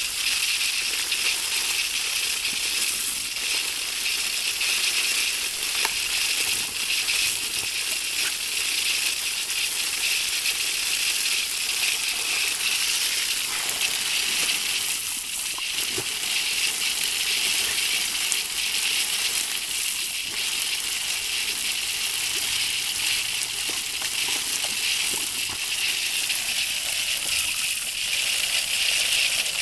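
Water hissing steadily from a garden hose spray nozzle, the spray pattering onto dry leaves and a log.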